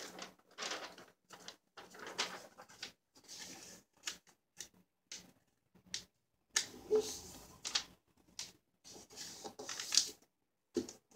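A sheet of lined notebook paper being folded and creased by hand: irregular rustling strokes of paper and fingers sliding along the folds, with short pauses between them.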